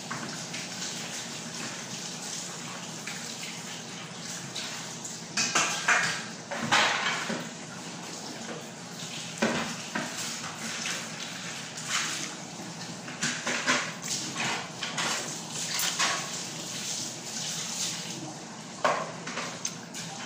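Close eating sounds of someone eating fish and rice by hand: chewing, lip-smacking and sucking meat off tuna-head bones, with scattered sharper clicks and knocks from the plate. There is a steady hiss underneath. The sharp sounds are loudest about six to seven seconds in.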